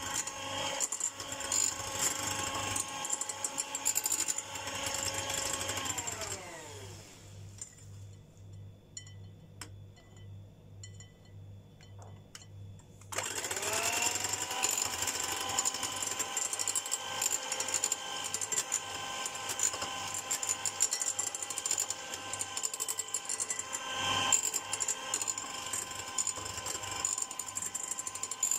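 Electric hand mixer whirring as its beaters whip egg whites to a stiff meringue in a glass bowl. About six seconds in it is switched off, and its pitch falls as the motor winds down. After several seconds of near quiet with a few light clicks, it starts again about thirteen seconds in and quickly rises back to a steady running pitch.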